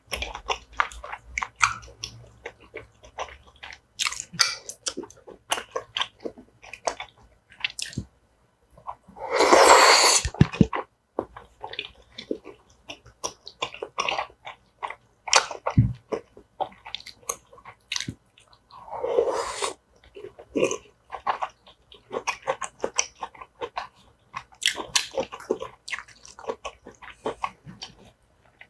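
A person eating tteokbokki: wet chewing of chewy rice cakes and soft vegetables, with many small mouth clicks and smacks. There are two longer, louder rushes of noise, about ten seconds in (the loudest) and again about nineteen seconds in.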